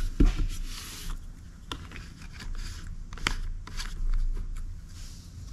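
Plastic jug of soap set down on a wooden table with a dull thump, followed by scattered light clicks and scrapes of hands handling the jug and bottle.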